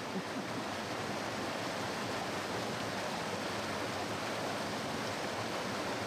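Snowmelt waterfall rushing over rocks: a steady, even roar of falling water.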